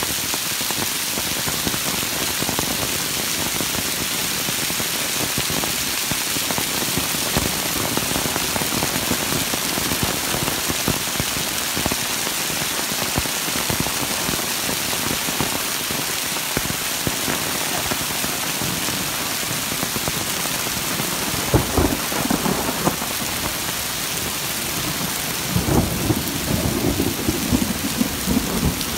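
Heavy rain pouring steadily onto stone paving and foliage, a constant dense hiss. Two-thirds of the way through, and again for a few seconds near the end, louder low rumbles break in over the rain.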